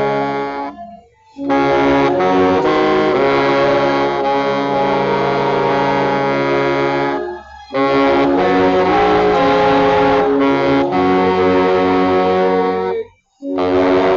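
Baritone saxophone playing loud, full-bodied held low notes in phrases, rumbling in tone, with three short silent breaks between phrases.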